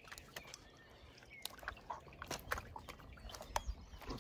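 A wet keepnet full of tench being handled: scattered faint clicks and short rustles at irregular intervals.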